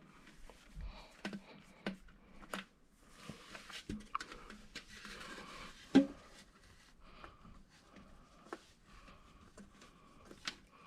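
Small clicks, taps and rubbing of cold air intake parts being handled and fitted by hand, with one sharper knock about six seconds in.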